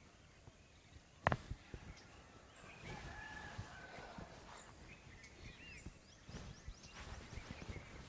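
Faint rubbing and patting of hands during a head massage, with one sharp hit about a second in. Chickens and small birds call in the background, with quick high chirps near the end.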